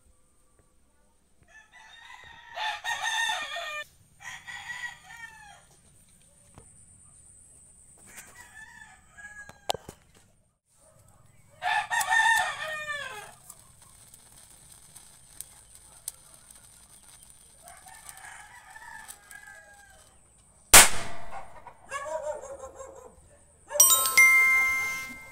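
Roosters crowing again and again, then one sharp, loud crack about three-quarters of the way through: a tiny triangle firecracker with a hair fuse going off. A chiming bell sound effect follows near the end.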